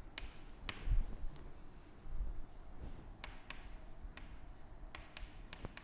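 Chalk writing on a chalkboard: irregular light taps and scratches as letters are written.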